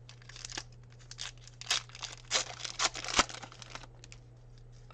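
Trading card pack wrapper being torn open and crinkled by hand: a run of sharp, crackly rips and rustles, loudest a little past the middle, dying away before the end.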